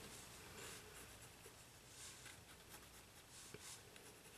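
Faint scratching of a colored pencil drawn in light strokes across sketch paper.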